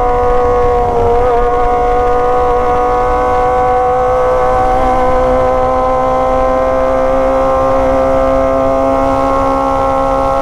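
Sport motorcycle engines running at high, steady revs on the move, their pitch creeping up slightly, with wind rushing over the microphone.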